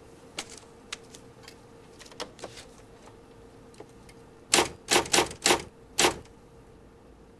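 Typewriter keys being struck: a few light scattered clicks, then five loud firm keystrokes in quick succession a little past halfway, over a faint steady hum.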